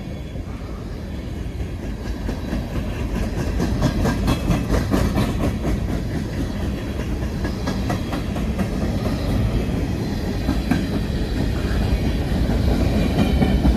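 Empty coal cars of a freight train rolling past close by: a steady rumble of steel wheels on rail, with repeated clicks as the wheel sets cross rail joints.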